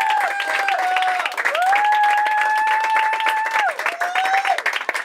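Audience applauding and clapping at the end of a live set, with long held tones over the clapping that slide up, hold steady, then drop away.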